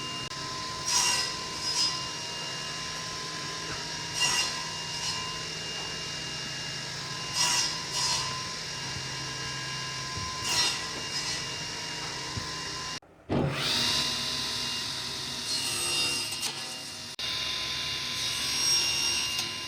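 Wood being cut with a woodworking tool over a steady machine hum, in short scraping strokes in pairs about every three seconds. About two-thirds of the way through the sound cuts out briefly and a denser, continuous cutting sound follows.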